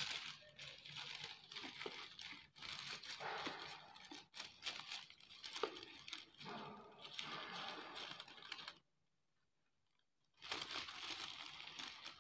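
Thin paper being crumpled and scrunched by hand around a plastic bottle: a dense crackling rustle. It stops for about a second and a half near the end, then starts again.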